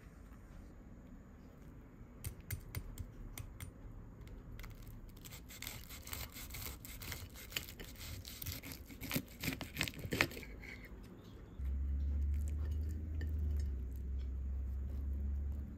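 Kitchen knife cutting through a burger with crisp, breaded fried eggplant buns: a few sharp clicks, then a run of dense crunching and crackling about five to ten seconds in. From near twelve seconds a steady low rumble takes over and is the loudest sound.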